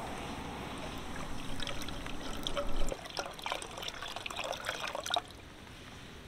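Water being poured and trickling, with a run of small splashes in the second half, stopping abruptly about five seconds in.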